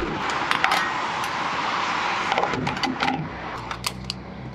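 Sharp clicks and small knocks from handling a vehicle's fuel filler, with a quick run of clicks near the end as the fuel cap is twisted shut, over a low steady hum.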